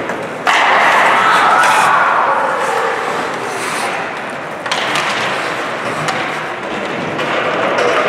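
Ice hockey skates scraping and carving across the ice, with a loud grinding hiss that swells suddenly about half a second in and again near five seconds, then fades.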